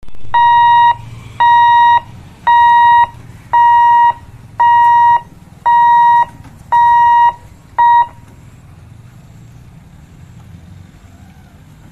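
Electronic warning beeper of a railway level-crossing boom barrier sounding as the barrier lifts: eight loud, steady high beeps, each about half a second long, about one a second, which stop about eight seconds in. Under them is a low rumble of road traffic waiting to cross.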